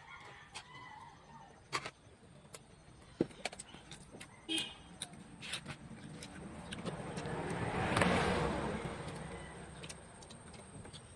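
A vehicle passes by, its noise rising and then fading over a few seconds, with scattered light clicks and taps throughout, such as utensils on plates during a meal.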